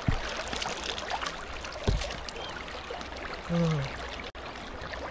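Shallow river water running and trickling over a stony bed. There is a low thump at the start and another about two seconds in, and a brief vocal sound about three and a half seconds in.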